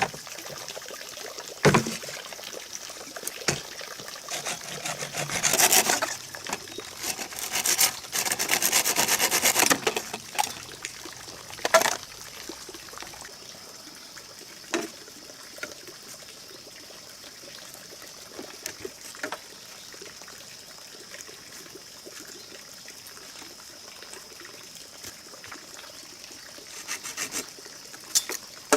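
Hand work on bamboo: a few sharp knocks and a stretch of rapid rasping, rubbing strokes, then a quieter steady background with a thin high tone.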